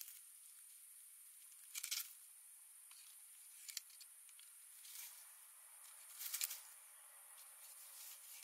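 Faint, short rustles and crackles of dry leaves and twigs on the forest floor, four or five of them a second or two apart, the loudest about two seconds in and again past six seconds, over a steady high hiss.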